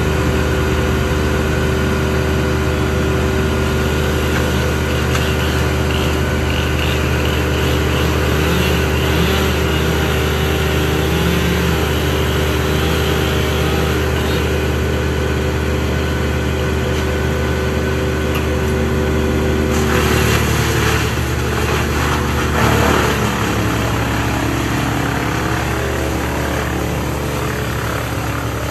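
A large Bandit brush chipper and a Schaeffer mini loader, both running steadily under their engines. About 20 seconds in, a loud, rough grinding burst of a few seconds as the chipper takes in and chips a load of leafy brush, and the engine note changes after it.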